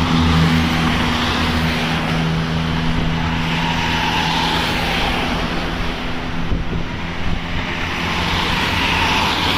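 Large bus engines and road traffic passing: a steady engine drone with a low hum that fades after about two seconds, and rushing swells of passing-vehicle noise about four seconds in and near the end.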